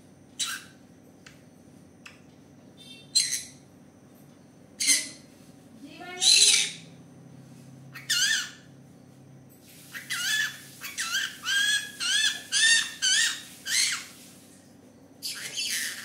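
Green-cheeked conure calling: short single squawks every second or two, then a quick run of about nine chirps, each rising and falling in pitch, and one more squawk near the end.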